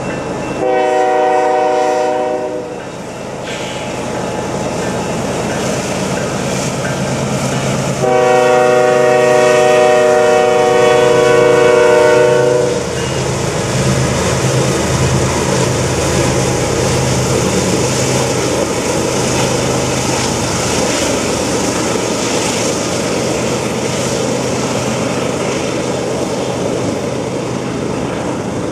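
CN freight train's diesel locomotives sounding their horn at a level crossing: a short chord blast about a second in, then a long one from about eight seconds to almost thirteen. The lead engines then pass with a low engine drone, and double-stacked container cars roll by in a steady rumble.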